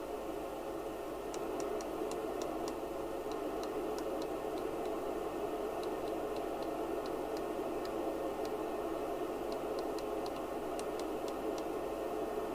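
Maxcom Apollo 16E FM CB radio receiving an empty channel through an extension speaker: a steady, even hiss of receiver noise, with faint scattered clicks.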